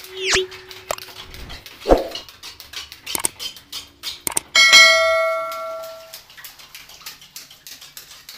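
Subscribe-button sound effect: a swoosh at the start, then a click and a bright notification-bell ding that rings out for about a second and a half. Under it, the scraping, tapping and slapping of sand-cement mortar being worked onto a ceiling, with a heavier thud about two seconds in.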